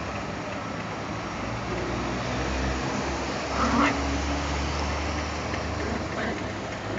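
Small dogs play-fighting, one giving a short yip a little past halfway, over a steady rumble of street traffic.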